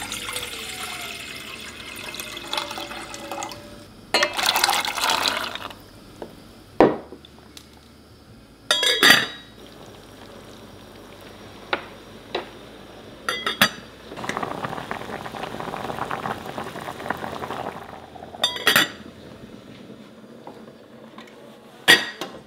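Liquid being poured into a vessel in a kitchen, in three spells, with a few sharp clinks of cookware in between.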